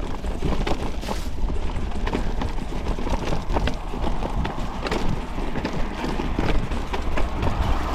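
Mountain bike riding over rough trail: a constant rolling rumble from the tyres, broken by many irregular knocks and clicks as the bike rattles over stones and roots, with wind buffeting the microphone.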